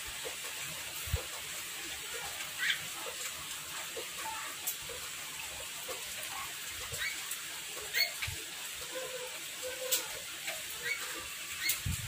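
Lovebird giving short, scattered squeaks a few seconds apart while held in the hand and dosed with drops, over a steady hiss, with a few soft handling clicks.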